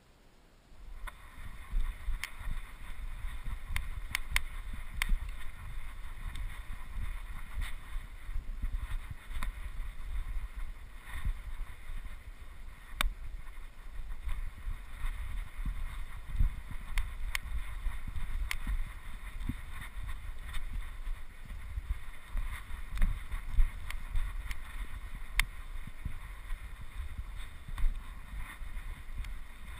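Wind buffeting the microphone as a low, uneven rumble, starting about a second in, with scattered sharp clicks and crunches over it.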